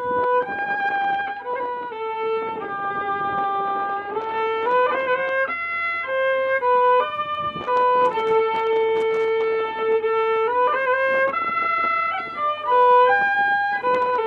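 Background music: a slow melody of long held notes played on a fiddle.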